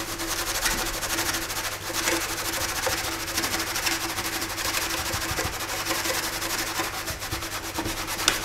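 A stiff-bristled hand scrubbing brush scrubbing a plastic toy vehicle hull in soapy water, in quick repeated back-and-forth strokes.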